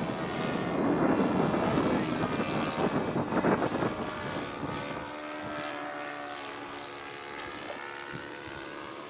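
Saito 82 four-stroke glow engine of a Seagull Decathlon RC model airplane running in flight, its propeller buzz loudest in the first five seconds and then fading to a steadier, quieter drone.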